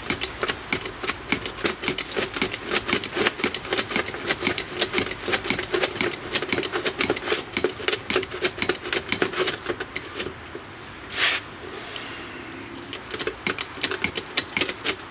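Ratchet wrench clicking in quick, steady strokes as it turns the threaded spindle of a hydraulic bearing press, driving a new front hub bearing into the steering knuckle. The clicking breaks off about two-thirds of the way through, with one short scraping rush, then starts again.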